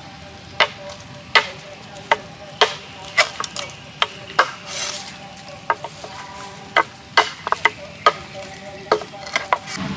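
A cleaver chopping at a green bamboo stalk on a wooden chopping board: sharp, short knocks at an uneven pace, about one to three a second, some in quick pairs and triples.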